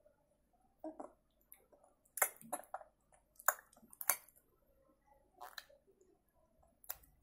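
A baby sucking on a lollipop: short wet smacks and clicks of the mouth at irregular intervals.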